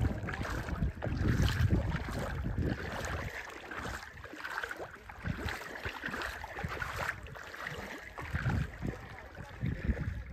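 Gusty wind buffeting the microphone, rumbling in uneven swells, over a rushing, splashing sound of water.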